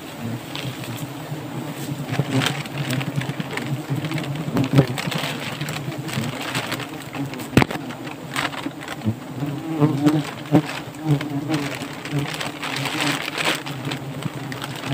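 A colony of honeybees buzzing on an exposed, bee-covered comb. Single bees fly close past the microphone, so the hum swells and fades unevenly, and there is one sharp click about halfway through.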